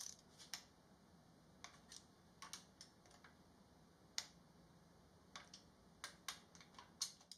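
Faint, irregular clicks of a hand torque wrench and socket as the oil pan bolts are tightened, about a dozen short ticks with gaps between them.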